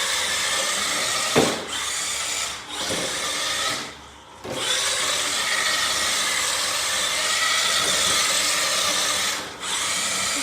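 Electric motor of a radio-controlled car whining as it drives, with a few short throttle lifts. It nearly cuts out for about half a second less than halfway through, then runs on steadily.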